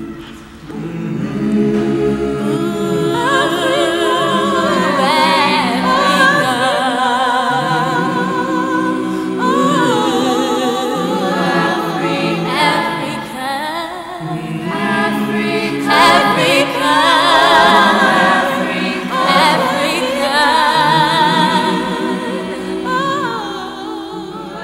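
Background music: a choir singing, several voices holding long notes with vibrato, in phrases.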